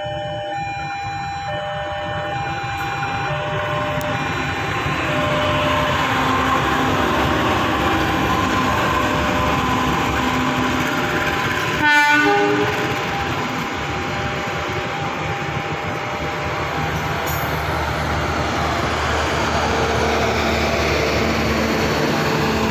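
Horn of a CC 201 diesel-electric locomotive sounding in short blasts as a passenger train approaches. The train's running noise builds up, and after about 12 seconds the locomotive and its passenger coaches pass close by with a steady rumble and wheel noise on the rails.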